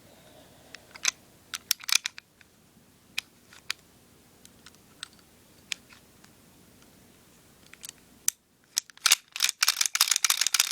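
Clicks and snaps of a WE M1911A1 airsoft pistol's parts being handled and fitted together during reassembly: scattered single clicks at first, then a quick, dense run of louder clicks in the last two seconds or so.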